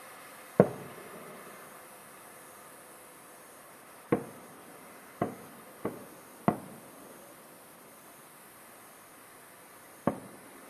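Aerial firework shells bursting: six sharp bangs, the loudest about half a second in, a quick run of four between about four and six and a half seconds in, and a last one near the end.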